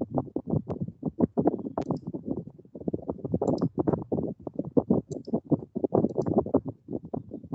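A fast, uneven patter of short low thumps, a few a second, with several sharper clicks mixed in, like a computer mouse clicking.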